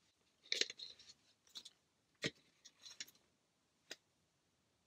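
Faint mouth clicks and lip smacks, about half a dozen short separate ones spread unevenly, the sharpest a little past two seconds in, in a quiet small room.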